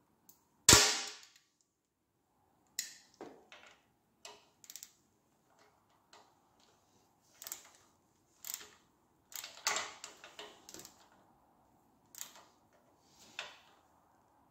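Hand tools and metal parts clicking and tapping as a bolt is fitted and tightened on a motorcycle's gear-change lever: a loud sharp clack about a second in, then irregular lighter clicks and knocks.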